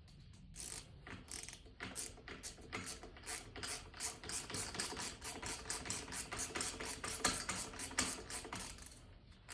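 Hand ratchet clicking in a rapid run of short strokes while tightening the dirt-bike wheel's valve stem nut down.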